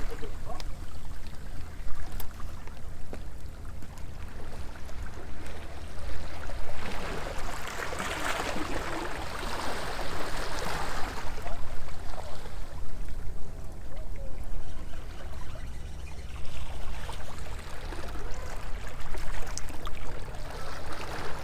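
Small sea waves washing and lapping against a stone seawall, swelling louder about seven to eleven seconds in, over a steady low rumble of wind on the microphone.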